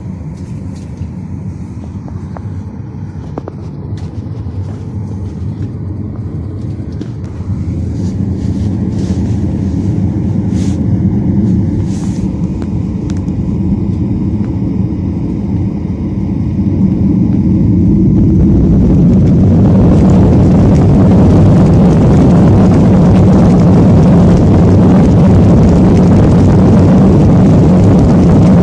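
Airliner jet engines heard inside the passenger cabin: a low steady hum that steps up about seven seconds in, then from about seventeen seconds the engines spool up to takeoff power and a loud, steady rushing noise fills the cabin as the takeoff roll begins.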